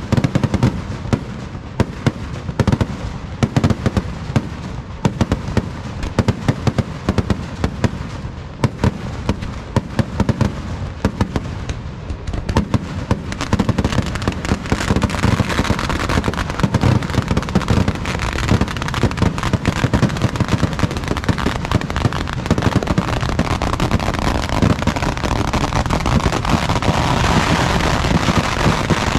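Fireworks barrage (vedikettu) going off in a rapid, unbroken run of bangs and crackling. It grows denser and louder from about halfway through.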